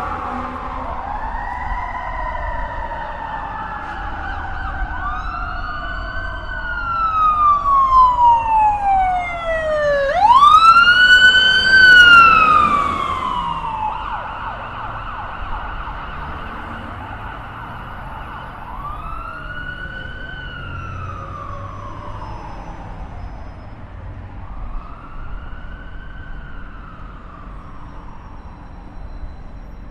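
Police car siren wailing in slow rising and falling sweeps, two sirens overlapping at first. It swells loudest in the middle and then fades away, over a low traffic rumble.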